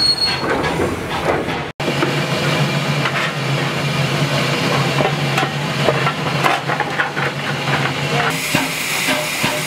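Tank steam locomotive standing with steam hissing steadily, over a low hum and light knocks and clicks from the cab. About eight seconds in, a louder, higher hiss of steam sets in.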